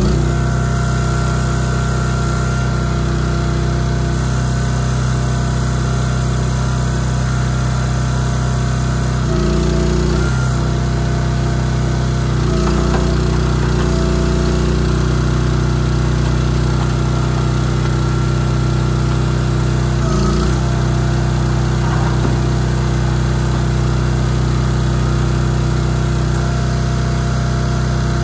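Engine of a Wolfe Ridge 4-way hydraulic log splitter running steadily. Its note dips briefly several times as the splitter works through rounds.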